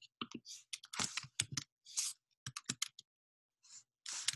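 Typing on a computer keyboard: irregular runs of key clicks, with a brief pause about three seconds in.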